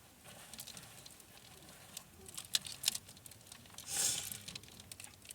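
Laundry and clothes hangers being handled: scattered light clicks, two sharper clicks near the middle, and a brief rustle about four seconds in.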